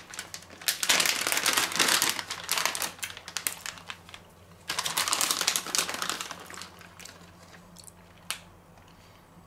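Plastic bag of grated mozzarella crinkling as it is handled, in two bouts of rustling, then quieter with a single short click near the end.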